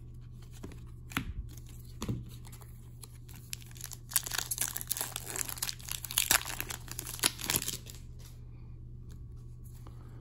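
Foil trading-card pack being torn open and its wrapper crinkled, with a few light clicks first and then several seconds of dense crackling in the middle, over a low steady hum.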